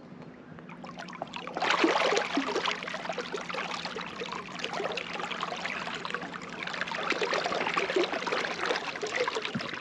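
Water sloshing and gurgling around a float tube as it is kicked backwards with swim fins, starting about a second and a half in and continuing as an irregular churn.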